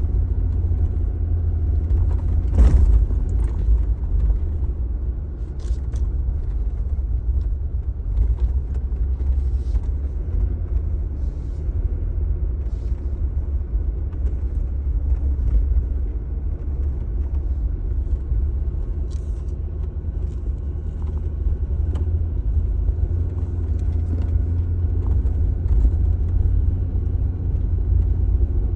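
Car driving with a steady low engine and road rumble. A few short knocks from bumps are heard, the clearest about three seconds in.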